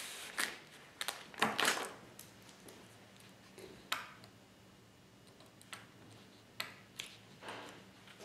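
Scattered short rustles and light taps of tape being smoothed, peeled and pressed down onto MDF template pieces, and of the pieces being handled on a workbench, with a longer rustle about a second and a half in.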